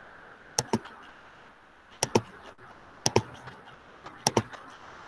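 Sharp clicks from someone working a computer, coming in quick pairs, four pairs about a second apart, over faint room hiss.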